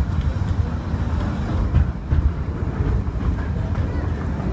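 Train rolling along the track, heard from on board the passenger car: a steady low rumble with faint, irregular clicks.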